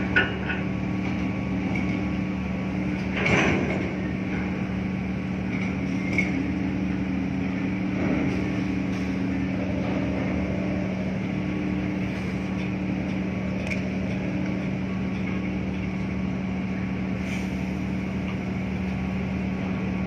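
Steady low drone of a ship's engine with a constant hum, broken by a few scattered knocks and clicks, the loudest about three seconds in.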